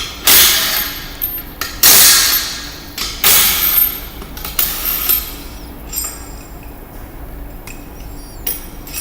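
Impact gun running in three bursts of about a second each, then a shorter fourth, hammering loose the bolts that hold the brackets.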